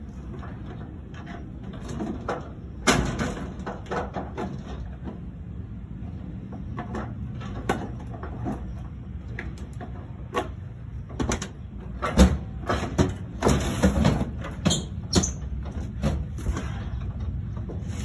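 Irregular metal knocks and clatter from work on an amusement-ride seat's safety lock, busiest in the second half, over a steady low hum.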